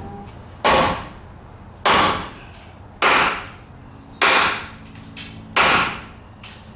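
Hammer blows on a wooden brace board up at the rafters: five sharp, evenly spaced strikes about a second apart, each with a short fading ring.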